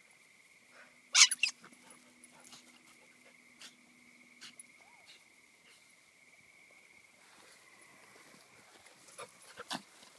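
A small dog gives a quick burst of two or three sharp yelps about a second in while playing rough with a larger dog, then a few more short, sharp sounds come near the end.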